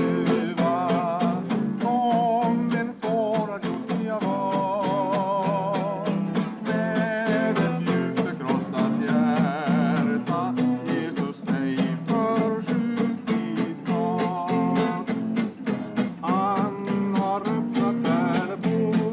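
A man singing a Swedish revival hymn, holding his notes with a wide vibrato, over a steadily strummed guitar.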